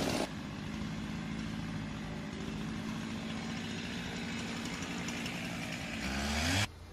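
An engine idling steadily, then revving up near the end before cutting off suddenly.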